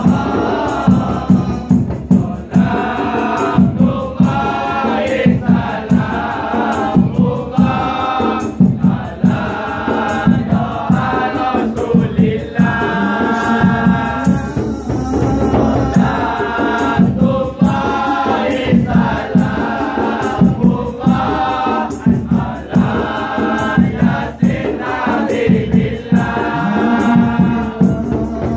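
A group of male voices, boys and young men, singing a Malay devotional song together, over a steady run of sharp kompang frame-drum beats.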